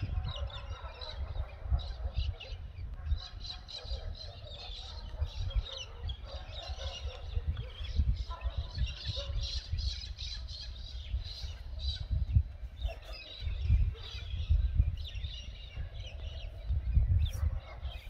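Outdoor ambience of birds chirping and calling irregularly, over a gusty low rumble of wind on the microphone.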